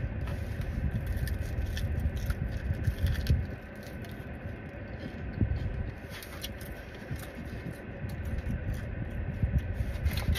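Close-up chewing and lip-smacking on extra-crispy fried chicken wings, with scattered crunchy clicks and paper wrapper rustling, over a steady low rumble inside a car.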